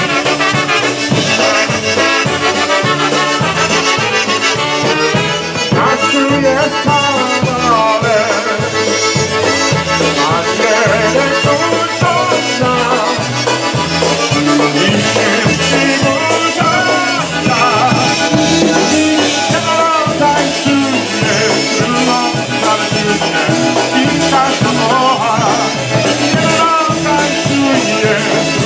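Live polka band playing a polka. Trumpets and saxophone carry the tune over accordion and drum kit, on a steady bass that alternates notes on the beat.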